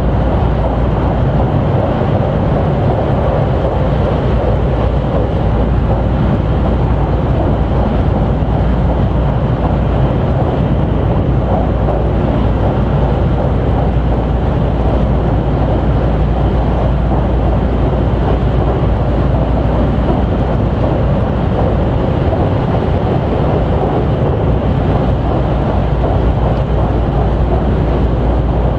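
Steady running noise of a JR West 281 series limited express train at speed, heard from inside the passenger cabin as it crosses a steel truss bridge: a constant rumble of wheels and motors with no change in pace.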